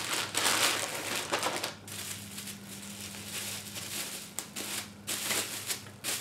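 Plastic bag and bubble wrap crinkling and rustling as a small tripod is pulled out of its wrapping: loudest in the first couple of seconds, then softer, scattered crinkles.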